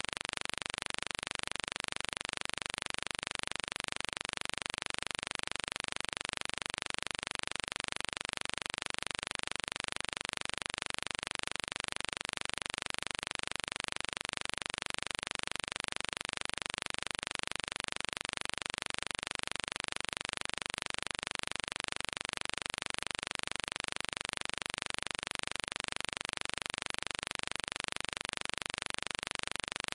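Steady, even hiss that does not change and has no distinct events in it.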